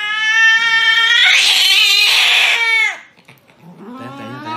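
Domestic cat yowling in distress while restrained for a veterinary injection. One loud, long yowl of nearly three seconds drops in pitch as it ends, and a second yowl starts rising near the end.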